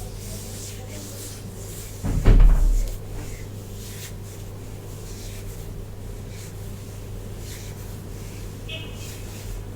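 Soft, repeated swishes of a brush or comb through hair over a steady low hum, with one loud low thump about two seconds in.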